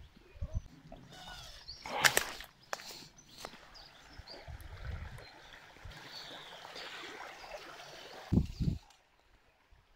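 Footsteps and the knock and crunch of stones on a rocky creek bank, with a cluster of sharp knocks about two seconds in and two low thumps near the end, over the steady rush of a shallow stream.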